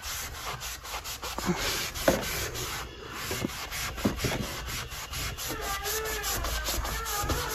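Damp Mr. Clean Magic Eraser scrubbing scuff marks off a door in quick back-and-forth strokes, about four a second, with a brief pause about three seconds in.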